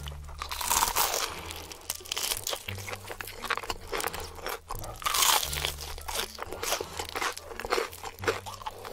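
Crunching and chewing of crispy fried chicken, many crunches in quick succession, loudest about a second in and again about five seconds in.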